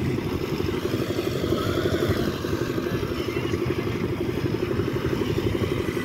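Engine of a road-construction mixing machine running at a steady speed, with a fast, even firing beat.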